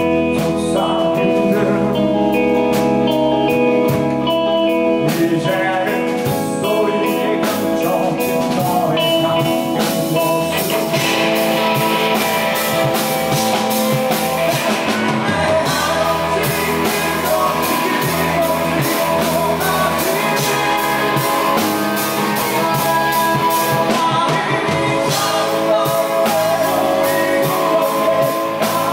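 Live rock band playing: electric guitars, bass guitar and drum kit, with a male voice singing. The band fills out with more cymbal about eleven seconds in.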